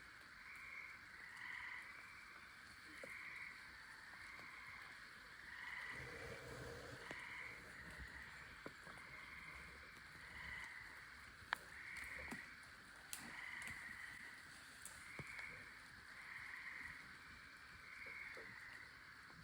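Faint chorus of frogs calling, swelling in pulses about once a second, with a few soft clicks and a brief low rustle about six seconds in.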